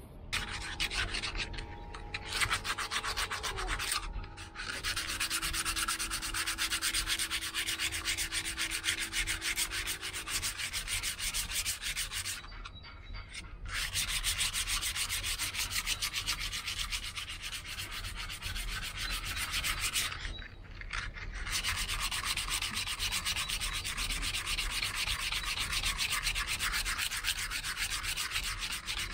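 Abrasive pad sanding by hand over the aluminium leg of a Yanmar SD20 saildrive in rapid back-and-forth strokes, with a few short breaks. It is scraping off the old copper antifouling paint down to the primer and bare metal.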